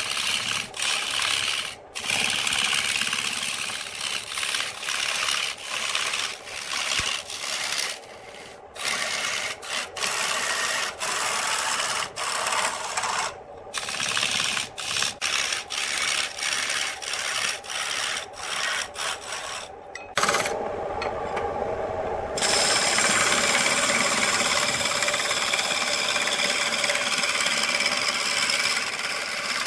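Wood lathe spinning a large wooden blank while a hand-held turning tool cuts into it: a rough hissing scrape as the shavings fly. The cut breaks off and resumes many times over the first two-thirds, then runs steadily.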